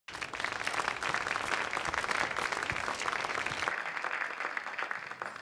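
Audience applauding, a dense patter of many hands clapping that drops sharply about two-thirds of the way through and fades away.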